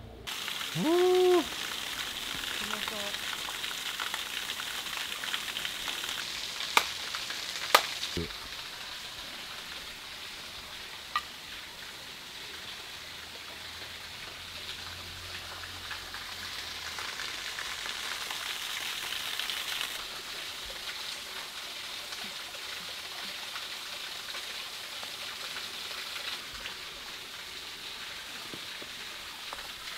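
A steady hiss of rain or running water, with a short pitched sound that rises and falls about a second in and a few sharp clicks near seven, eight and eleven seconds.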